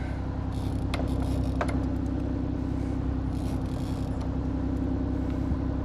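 Boat engine running steadily with a low, even drone, with a couple of sharp clicks about one and one and a half seconds in.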